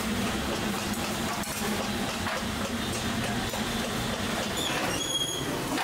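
Steady rushing noise of large aluminium idli steamers venting steam over gas burners, with a short high ringing tone about five seconds in.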